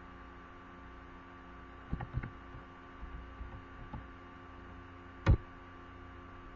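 Steady electrical mains hum, with a few clicks from working the computer: two soft ones about two seconds in and a sharper one a little past five seconds.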